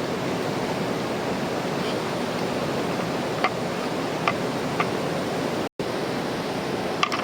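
Mountain river flowing with a steady rushing sound, with a few light clicks over it. The sound cuts out for an instant about two thirds of the way through.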